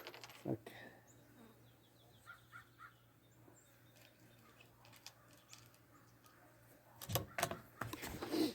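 Birds calling: three short faint calls about two seconds in, then louder calling near the end.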